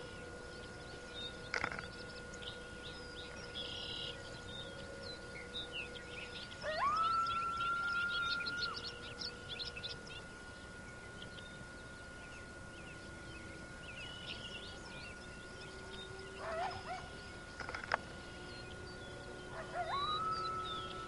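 Coyotes howling: two long calls, each rising and then held on one pitch for about two seconds, the first about six seconds in and the second near the end. Birds chirp between them.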